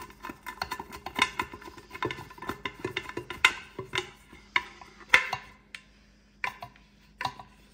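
Phillips screwdriver turning a screw down through a wooden pan handle into its metal mount: a quick run of small clicks and scrapes, thinning to a few separate clicks after about five seconds.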